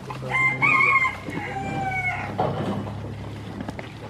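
A rooster crowing once: a single crow of about two seconds that steps up in pitch, holds, and falls away at the end.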